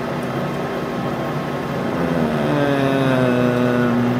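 Monarch engine lathe running a threading tool along the shaft in a light scratch pass to check the thread pitch: a machine whine comes in about halfway, sinks slightly in pitch and cuts off abruptly at the end, over a steady shop hum.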